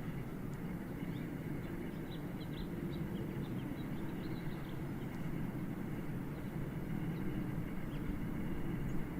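Steady low rumble of jet aircraft passing high overhead, growing slightly louder near the end, with small birds chirping briefly in the first few seconds.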